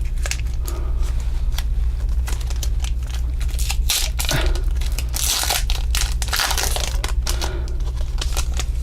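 Plastic trading-card booster-pack wrapper being torn open and crinkled by hand: a run of sharp crackles, with a longer tearing rip about five seconds in and another near the end.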